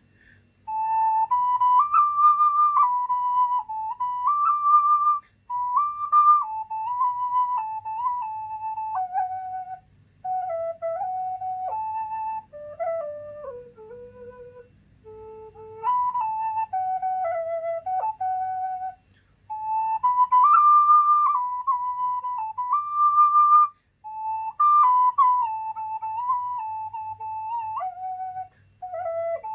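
A key-A Thai khlui (bamboo duct flute) playing a solo melody: one line of held notes stepping up and down, in phrases with short breaks for breath between them, as the first section of the tune is played through.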